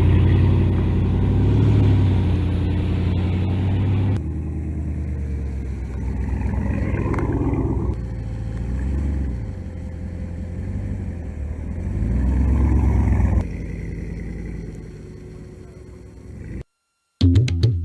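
The Ram Rebel TRX concept's supercharged 6.2-liter HEMI V8 running and revving in several rising pulls, in edited takes that change abruptly about four and thirteen seconds in. It fades out near the end, and a short burst of drum music starts just before the end.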